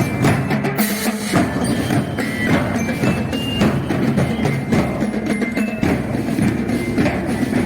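A marching drum band playing: snare and bass drums beating a dense rhythm under short, ringing bell-lyre (glockenspiel) notes.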